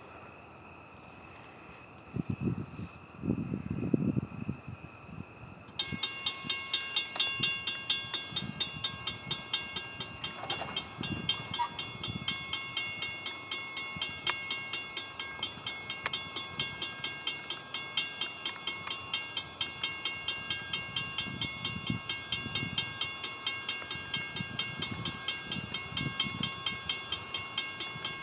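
Railroad grade-crossing warning bell starts ringing about six seconds in, a fast, even, repeating ding that goes on steadily: the crossing has activated for an approaching train. A few low rumbles come before the bell starts.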